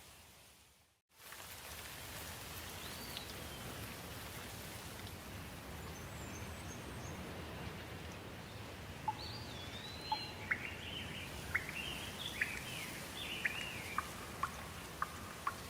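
Light rain falling steadily while songbirds chirp, with a rush of short, sharp calls and arching notes in the second half. The sound drops out briefly about a second in.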